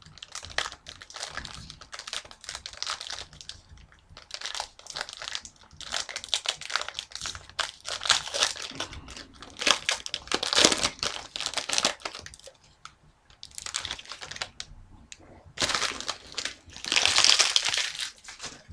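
Wrapper of a sealed pack of hockey trading cards being torn open and crinkled, with rustling and handling of the cards inside; the loudest crinkling comes near the end.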